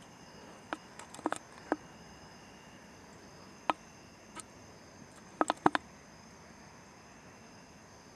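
Crickets chirring steadily in the background, with a scattering of short sharp clicks and taps: a cluster in the first two seconds, one near four seconds, and another quick cluster about five and a half seconds in.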